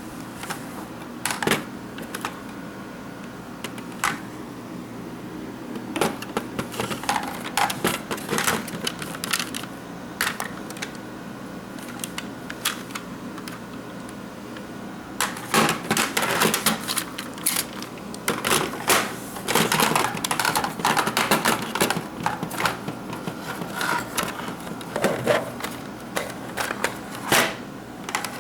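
Plastic toy dart blasters being handled: irregular sharp clicks and clattering, sparse at first, then coming in quick, dense flurries for the second half.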